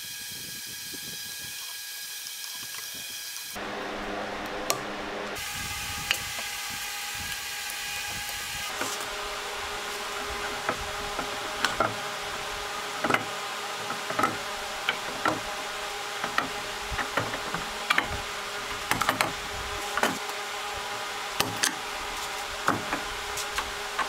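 Steel pipe clamps being set and tightened during a woodworking glue-up: a run of sharp metal clicks and clacks, thickest in the second half, over a steady shop hum.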